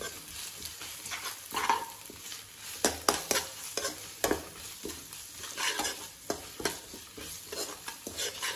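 Metal ladle scraping and clicking irregularly against a steel kadai as onions and ginger-garlic paste are stirred and sautéed in oil, with a light sizzle of frying underneath.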